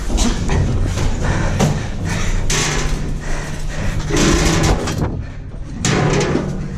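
Metal wire-mesh gate rattling and banging as it is climbed over, with repeated knocks and thumps from hands and feet on the metal.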